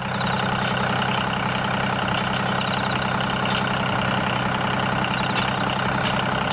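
Tractor engine running steadily at idle, an even low drone with a few faint clicks now and then.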